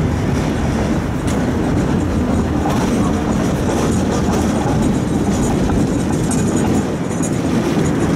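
Budapest tram running along its track, heard from on board: a steady rumble of wheels on rails.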